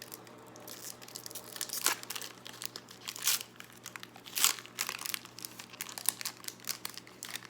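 Pokémon card booster pack wrapper being crinkled and torn open by hand, with irregular crackles, the sharpest about two, three and four and a half seconds in.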